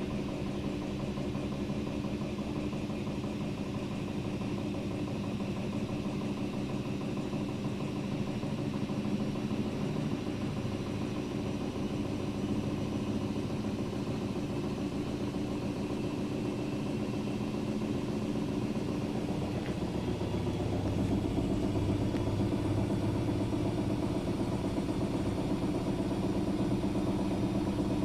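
Daewoo DWD-FT1013 washing machine on a spin cycle at about 800 rpm with an unbalanced load, the motor and drum giving a steady hum that grows a little louder about twenty seconds in.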